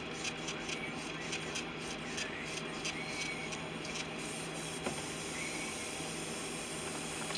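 Airbrush spraying with a steady hiss that grows stronger about four seconds in, over a steady low hum. Small clicks and taps come in the first few seconds.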